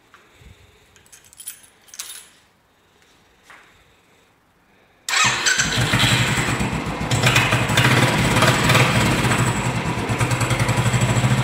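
A few light clicks, then about five seconds in the Royal Enfield Classic 350's single-cylinder engine starts abruptly and settles into a steady idle. This is its first start after a fresh oil and filter change.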